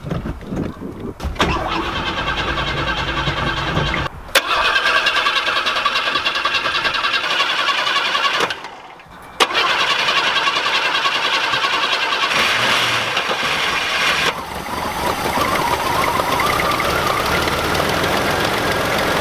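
Chevrolet S10 pickup that has sat for a long time, started off a jump pack. The starter cranks for a few seconds, and the engine catches about four seconds in and runs. It cuts out for about a second near the middle, then fires again and keeps running.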